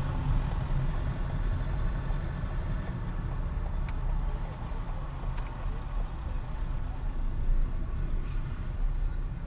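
Low, steady engine and road rumble of a car heard from inside the cabin through a dashcam's microphone, creeping through slow city traffic. The sound cuts in suddenly at the start, and two faint clicks come about a second and a half apart near the middle.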